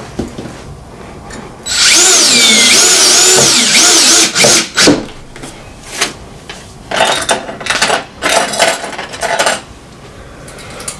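Cordless drill driving screws through window-shade mounting brackets into the hardwood frame: one long run of about three seconds, its motor whine wavering up and down in pitch as the trigger is eased, then several short bursts.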